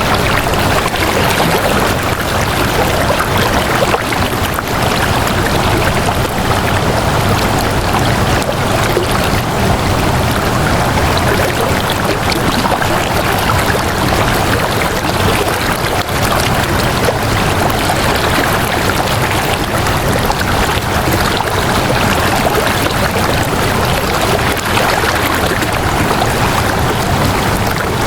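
Flowing water making a steady, even rushing sound with no pauses or changes.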